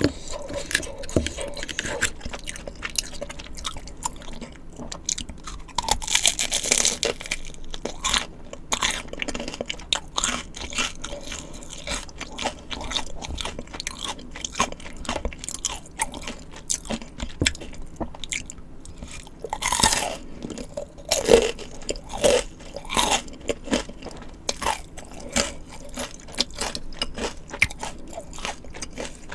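Close-miked eating sounds: crunchy bites and chewing of fried snacks and spicy tteokbokki, a rapid run of crisp clicks, with two longer, louder stretches about six seconds in and about twenty seconds in.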